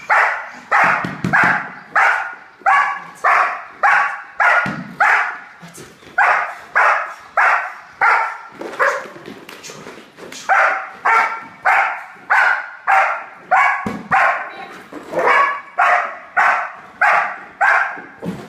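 A working dog barking steadily and rhythmically, about two barks a second with a few short breaks, at a helper waving a bite sleeve during IPO bitework.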